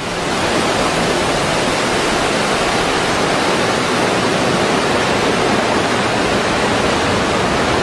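Ocean surf: a steady, loud rushing sound of breaking waves that starts suddenly and holds level, with no rise and fall of single waves.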